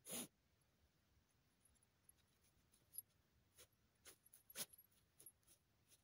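Jagdterrier puppy working its muzzle into a hole in the dirt, digging at it with its teeth: a few short, faint scuffing and snuffling sounds, the strongest at the very start and about four and a half seconds in.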